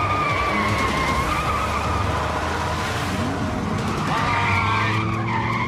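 Car tyres squealing under hard acceleration and cornering, over a steady engine rumble. One wavering squeal lasts about two and a half seconds, and a second starts about four seconds in.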